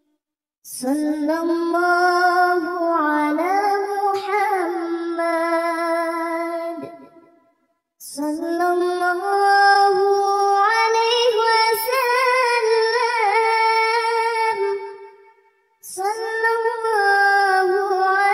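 A high solo voice sings shalawat unaccompanied, in three long phrases with winding melismatic runs. Each phrase is separated from the next by a short pause.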